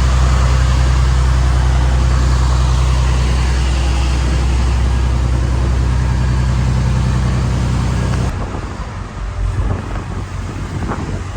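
Motor vehicle driving, with a steady low engine drone and road noise. About eight seconds in it gives way to a rougher, quieter, uneven rumble.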